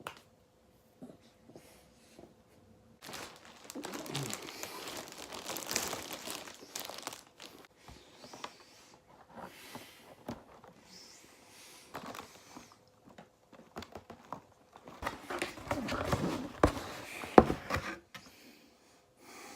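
Crinkling, rustling handling noise with many small crackles, in two stretches: a few seconds in and again near the end.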